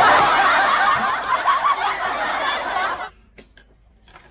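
Laughter sound effect, a snickering, tittering laugh lasting about three seconds that cuts off abruptly; a few faint clicks follow.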